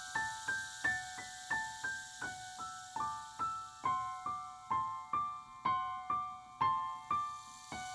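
Live film-score music: a piano-like keyboard plays a slow, single-note melody at about two notes a second over a held lower note. Each note is struck and fades.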